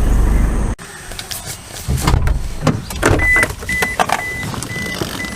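Steady low road rumble inside a moving 2013 Toyota Innova that cuts off abruptly just under a second in. Then clicks and knocks in the stationary car, with a series of about five short high beeps, one pitch, in the second half.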